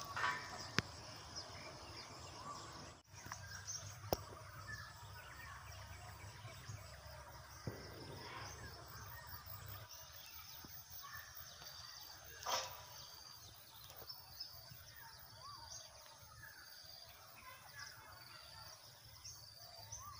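Faint outdoor ambience with small birds chirping: a short high note repeats about once a second in the second half. A few soft knocks sound now and then.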